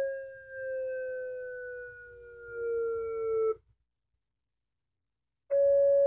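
Synthesized electronic siren tone played from a laptop's built-in speaker, unamplified. It slowly winds down in pitch and cuts off a little past halfway. After a short silence it starts again abruptly at full pitch with no wind-up, a wind-up the sequence is missing.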